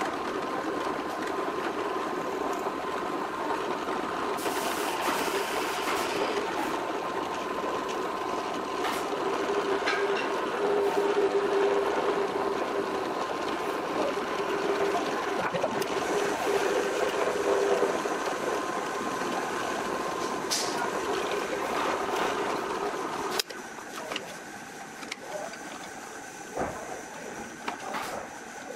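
Electric drill in a drill stand running steadily and boring into the end grain of a wooden cylinder, louder for stretches while the bit cuts. The motor stops a little after three-quarters of the way through, followed by light knocks as the wood is handled and repositioned.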